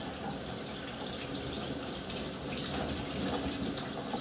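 Shower water running steadily, spraying and splashing, with a few small splashes as hair is washed under it.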